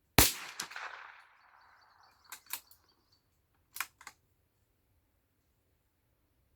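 A single shot from a CZ 455 Evolution rimfire rifle, a sharp crack with a tail that echoes away over about a second and a half. Two pairs of short, sharp clicks follow, about two and four seconds in.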